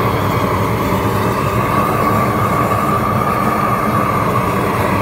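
Propane roofing torch burning steadily, its flame held against icy pavers to melt the ice: a constant loud rushing noise with a low rumble underneath.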